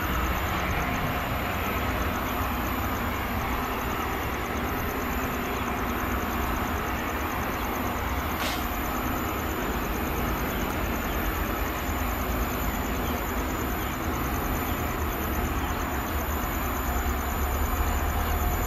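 Diesel freight locomotives working under power as a long freight train approaches, a steady low engine rumble that grows slightly louder near the end. Their dark exhaust smoke shows the engines are pulling hard.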